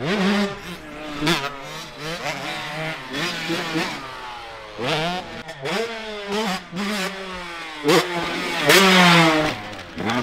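Dirt bike engine revving hard and backing off again and again as it is ridden, its pitch climbing sharply through each burst of throttle. The longest, loudest rise comes near the end.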